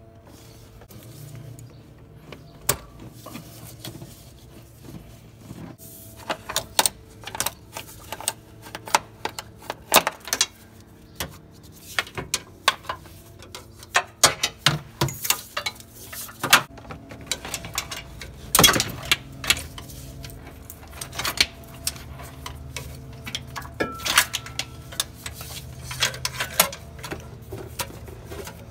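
Irregular metallic clicks, knocks and rattles of the steel transmission cooler lines and their retaining clips being worked loose and pulled out from under the truck, over a faint steady hum.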